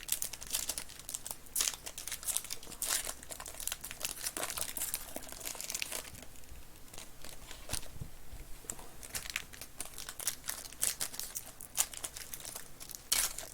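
Plastic wrapping on a sealed trading-card box crinkling and tearing as it is opened by hand, in a dense run of irregular crackles.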